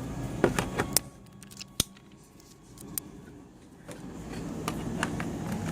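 Scattered sharp clicks and taps of a small plastic plug-in power meter being handled, the sharpest about two seconds in; a low steady hum comes in near the end.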